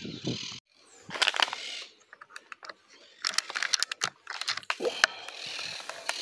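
Handling noise from the air rifle and the phone filming through its scope: a run of small clicks and short metallic rattles, with one sharper click about five seconds in.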